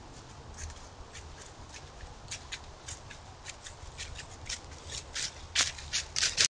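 Dry leaves crunching and rustling in short crackles that come quicker and louder toward the end, as something moves through them on the forest floor. The sound cuts off abruptly just before the end.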